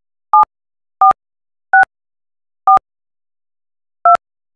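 Touch-tone (DTMF) keypad tones from a softphone dialer: five short two-note beeps at uneven intervals, each one a digit of an installation ID being keyed into an automated phone activation system.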